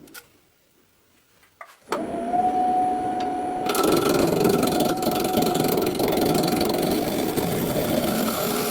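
Electric power tool motor switching on about two seconds in and running with a steady whine. From about two seconds later a loud, harsh grinding noise joins it, as the tool works the wood.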